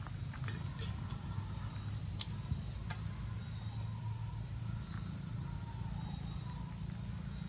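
A steady low rumble under scattered sharp clicks and crackles of dry leaves and twigs, the clicks clustered in the first three seconds.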